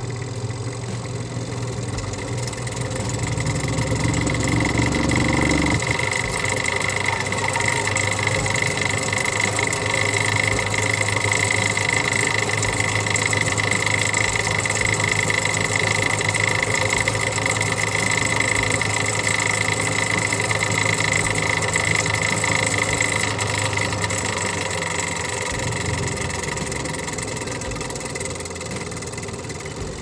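Twin-tub washing machine spin-dryer motor spinning with its brake off, a loud and noisy running hum. It grows louder a few seconds in, and a high steady whine comes in through the middle before the sound eases off near the end.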